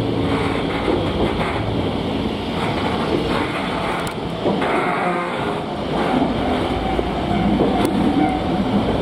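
Interior noise of an electric commuter train car, a former Seibu unit: a steady rumble of the car and its electric traction motors, getting louder over the last few seconds.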